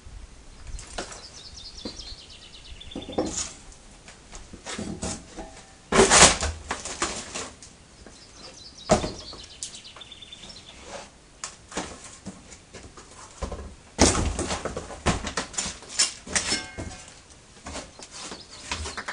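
Metal trailer parts, tyres and plastic mudguards being handled and set down on cardboard: irregular clunks, knocks and cardboard rustling, with sharp bangs about six and fourteen seconds in. A bird sings a short descending trill twice in the background.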